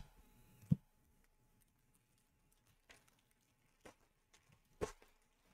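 Quiet handling of trading cards and a foil card pack: four short taps and clicks, the loudest about a second in and another near the end as the pack is gripped to be opened.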